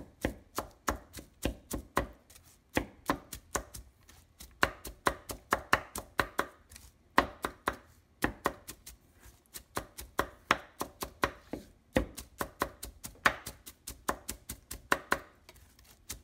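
Kitchen knife chopping red onion and cilantro on a wooden cutting board, mincing it fine: quick sharp knocks, about four a second, in runs with short pauses between them.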